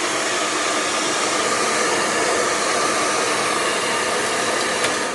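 Handheld hair dryer running steadily, blowing on hair, with a brief click near the end.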